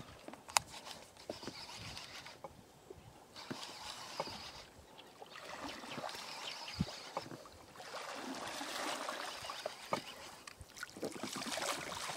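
Water sloshing and splashing around a small inflatable boat, with scattered light knocks and clicks. Near the end a hooked snakehead splashes at the surface beside the boat.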